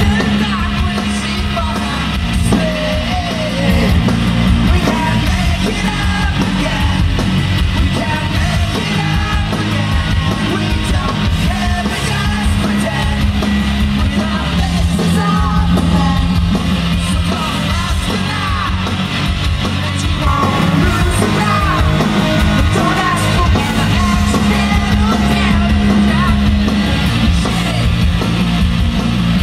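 Live rock band playing loudly, with distorted guitars, heavy bass, drums and singing, heard from within the audience.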